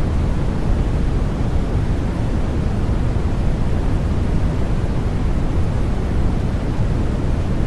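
Continuous baby sleep noise: an even, unchanging hiss weighted toward the low end, so it sounds deep and rushing rather than bright.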